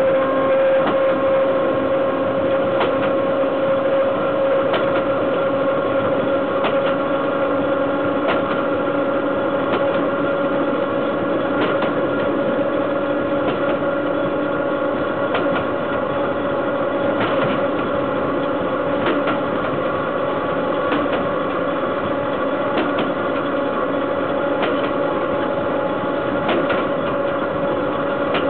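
Wheels of a BDZ class 43 electric locomotive rolling on the rails at speed under a heavy freight train, heard right at the bogie. A steady rolling noise carries a constant whine that creeps slightly up in pitch, with a light click about every two seconds.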